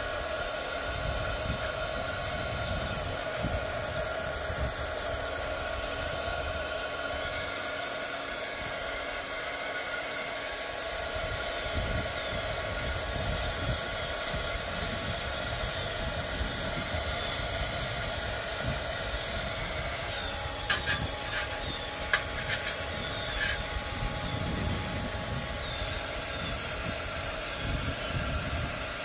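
Handheld craft heat gun running steadily, its fan blowing hot air with a steady whine, aimed at fabric flower petals. A couple of sharp taps come about two-thirds of the way through.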